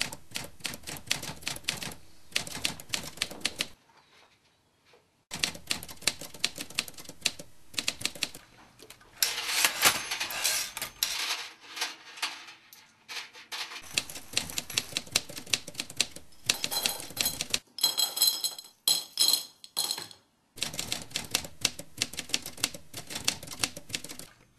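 Typewriter keys striking in quick, uneven runs, pausing briefly about four seconds in. A short high metallic ringing comes about three-quarters of the way through.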